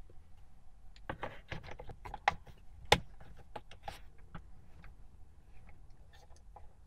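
Hard plastic steering-column cover halves being handled and fitted together: a run of clicks and knocks starting about a second in, with two sharp snaps a little after two and three seconds in, then a few light scattered clicks.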